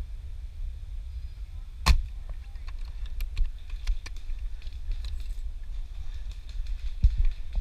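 One sharp crack about two seconds in, then a scatter of lighter clicks and snaps and a low thump near the end, over a steady low rumble.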